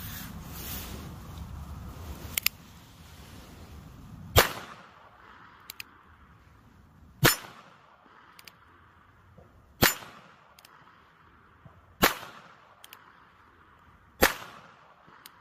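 A small stainless mini revolver firing five single shots, about two to three seconds apart, each a sharp crack. A faint click comes between the shots.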